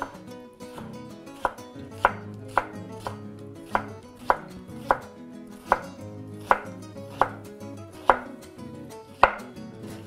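Kitchen knife slicing a red onion on a wooden cutting board: about a dozen sharp knocks of the blade on the board, unevenly spaced about half a second to a second apart, starting a little over a second in.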